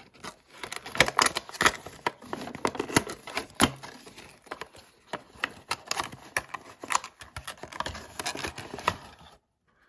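A cardboard HeroClix booster box being torn open by hand and its cardboard insert pulled out: an irregular run of sharp clicks, snaps and papery rustling that cuts off suddenly near the end.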